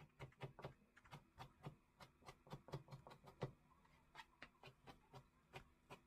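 Kitchen knife chopping cabbage on a plastic cutting board: a quick, even run of faint knocks, about three to four strokes a second.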